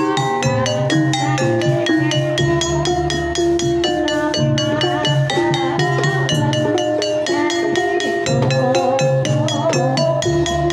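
Live Banyumasan tayub gending: kendang hand drums keep a fast, even beat under ringing notes from struck keyed gamelan instruments, with a sinden's singing voice weaving through.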